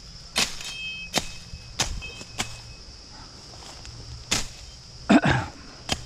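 Machete chopping brush and small branches: about seven sharp strikes spaced half a second to a second apart, the blade ringing briefly after some, with the loudest hit a little after five seconds in. Crickets chirp steadily underneath.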